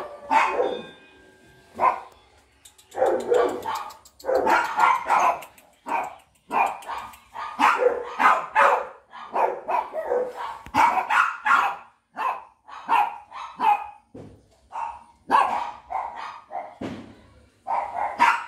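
Rottweiler puppies yapping and barking in short, irregular bursts, many in quick succession with brief pauses between.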